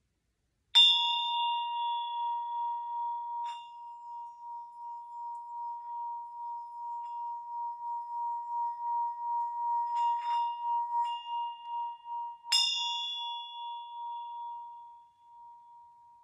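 Tibetan hand bell struck about a second in, ringing one clear tone with bright high overtones that keeps sounding with a regular pulsing swell. Lighter strikes come around 3.5 and 10 seconds, and a second strong strike at about 12.5 seconds, after which the ring fades away.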